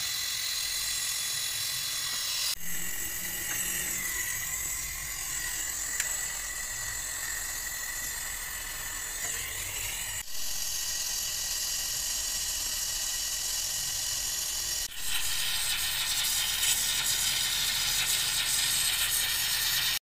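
Gas brazing torch hissing steadily while copper pipe is brazed onto a rotary compressor. The hiss shifts abruptly three times.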